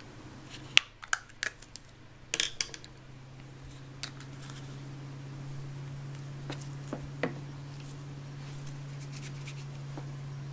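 Plastic Play-Doh tubs and snap-on lids being handled: a few sharp clicks and taps in the first two and a half seconds, then scattered light taps, over a steady low hum.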